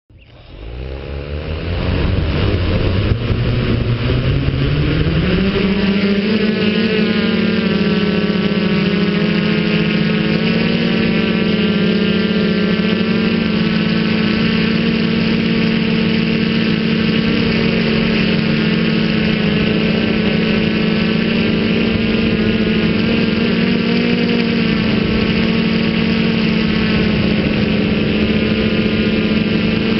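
Feiyu Tech Y6 Scorpion multirotor drone, with six electric motors and propellers on three coaxial arms. The motors spool up from standstill for takeoff, rising in pitch over the first five seconds or so. They then run at a steady pitch in flight with small wobbles, heard close up from the camera on the airframe.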